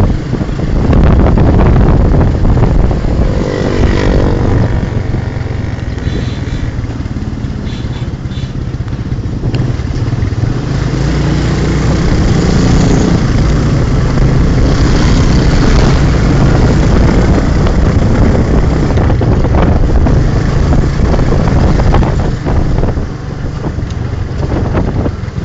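A motorcycle engine running as the vehicle rides along, heard from on board, with heavy low wind rumble on the microphone.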